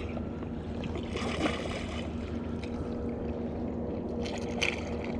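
A steady low hum, with faint water splashing and a few small clicks, as a hooked speckled trout is played and brought alongside the boat.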